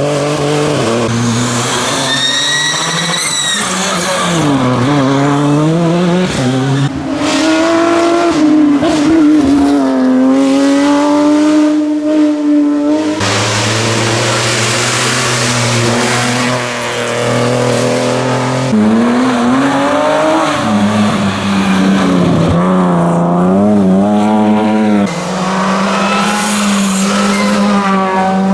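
Rally cars at speed on a stage, their engines revving up and down in pitch through gear changes, with tyres squealing. The sound changes abruptly a few times.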